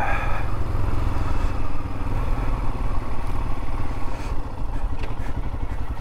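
2022 Royal Enfield Himalayan's 411 cc single-cylinder engine running steadily as the bike rides along.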